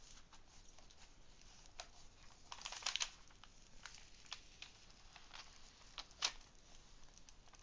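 Scattered light clicks and crinkles of the plastic cover film on a diamond painting canvas being handled and peeled back from the sticky glue. The clicks bunch up about three seconds in, with a sharper click about six seconds in.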